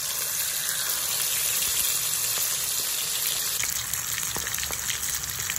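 Marinated whole quail deep-frying in hot oil: a steady, loud sizzle, with more popping crackles in the second half.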